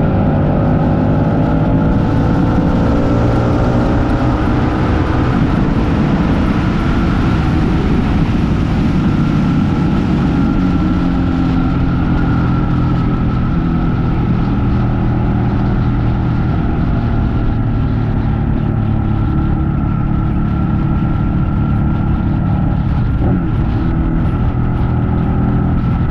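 Ducati Panigale 899's Superquadro L-twin engine running under way. The engine note shifts in pitch over the first couple of seconds, then holds steady.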